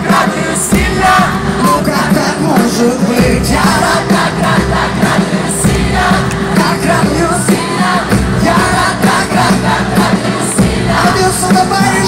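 Live pop concert: amplified band music with a steady beat and a singer, with a large crowd cheering and singing along.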